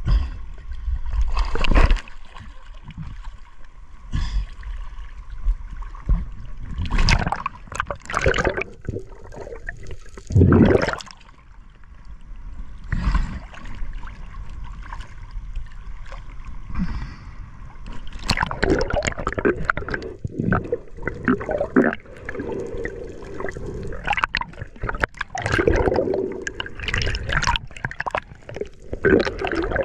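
Sea water splashing and gurgling in irregular bursts, busier in the last third.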